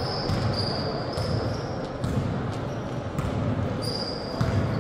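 Basketball being bounced on a hardwood indoor court, with sneakers squeaking in short high chirps several times in the first second or so and again near the end, over the general noise of players moving in a gym hall.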